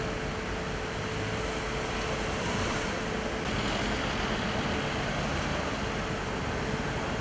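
Street traffic: cars driving slowly past, with a steady hum of running engines that eases about five seconds in.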